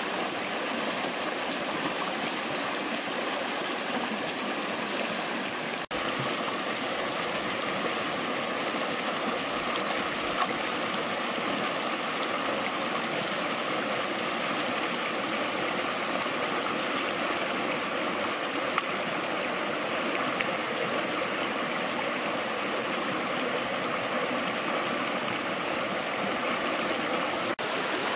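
A shallow rocky stream rushing over boulders in small rapids: a steady wash of running water, briefly cut about six seconds in.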